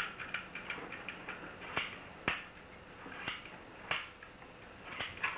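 Irregular sharp clicks and snaps of plastic toys being handled, about a dozen, with the sharpest a little past two seconds in.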